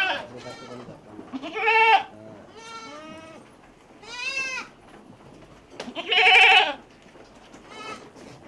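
Goats bleating, a series of separate quavering bleats, the loudest about six seconds in.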